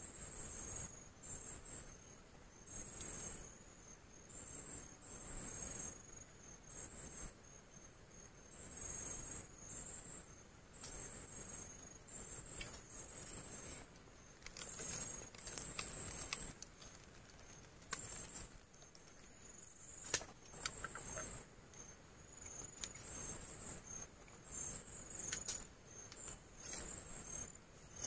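Night insects, crickets, chirping in short high-pitched trills that repeat about once a second. Faint rustling and scattered clicks run under them, with a sharp click about twenty seconds in.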